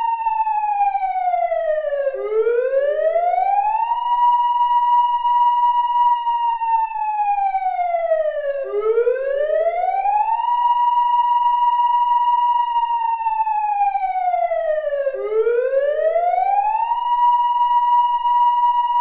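Emergency alert siren tone, electronically generated: a steady high tone that slides down, then sweeps back up and holds, in a slow wail repeating about every six and a half seconds, three times.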